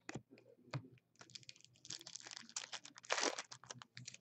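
An Upper Deck Series One hockey card pack's wrapper being torn open and rustled by hand, among small clicks of cards being handled. The loudest, longest rustle comes about three seconds in.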